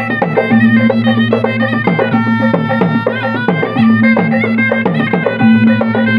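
Traditional Bugis-Makassar tunrung pamanca music: gendang drums beat a fast, dense rhythm under a shrill reed-pipe melody, played over a steady drone.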